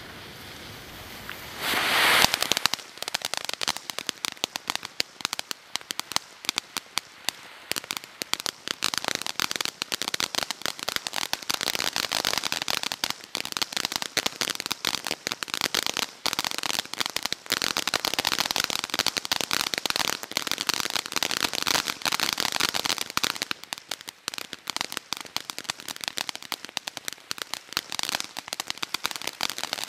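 Cutting Edge Fireworks Armadillo Fountain, a ground fountain firework, burning: a faint fuse hiss, then about two seconds in a sudden loud rush as the fountain ignites, going on as a steady hiss of sparks packed with dense crackling.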